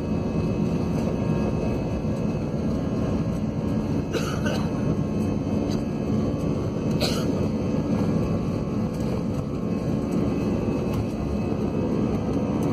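Steady engine and cabin rumble of an airliner, heard from inside the cabin. Two brief sharper sounds cut through it, about four and seven seconds in.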